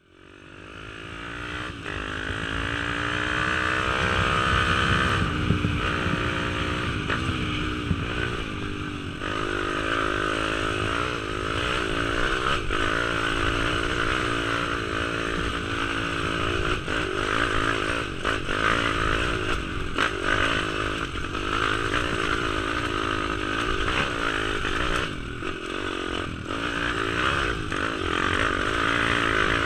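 YCF Bigy pit bike's new Daytona 190 single-cylinder four-stroke engine running on light throttle while being run in. The sound fades up from silence in the first second, the engine note rises over the first few seconds, then rises and falls with the throttle.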